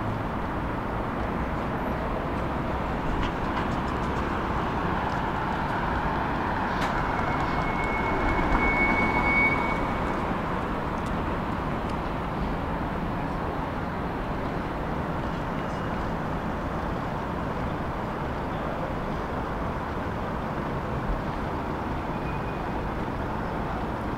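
City street traffic noise, steady throughout. About eight to ten seconds in, a vehicle passes closer and louder with a brief high whine.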